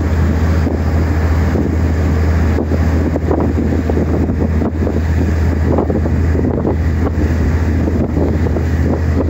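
Steady low drone of a boat's engine, with wind gusting on the microphone and water washing along the hull.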